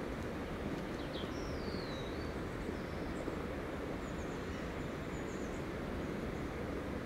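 Small birds chirping and calling over a steady rushing background noise, with one wavering whistled call about a second and a half in.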